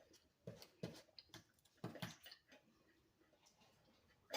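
Near silence with a few faint clicks and mouth sounds of someone eating in the first two seconds, and one louder short knock at the very end.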